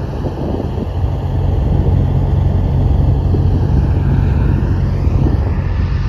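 Semi-trucks hauling a combine, a tractor and a grain cart on lowboy trailers driving past, their diesel engines and tyres making a loud, steady low rumble.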